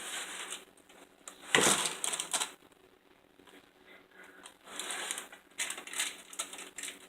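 A utensil spreading thick cream cheese filling across a cake pan, in irregular scraping strokes, with a louder knock about a second and a half in.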